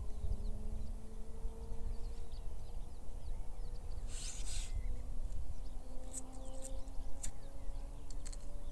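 Wind rumbling on the microphone while small birds of the dawn chorus chirp faintly. A brief rustle comes about four seconds in, then a few light clicks as a backpacking gas stove is handled.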